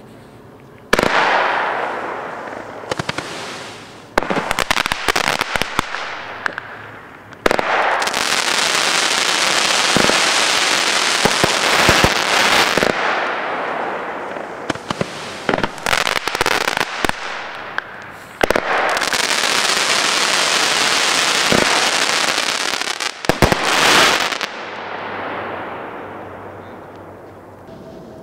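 Weco 'Fata Morgana' consumer firework going off. There are sudden bangs, each followed by several seconds of dense hissing that slowly fades, with quick clusters of sharp cracks in between.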